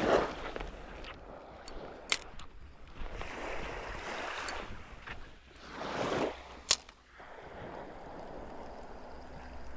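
Small waves washing in and drawing back, swelling twice, with two sharp clicks about two seconds in and near seven seconds.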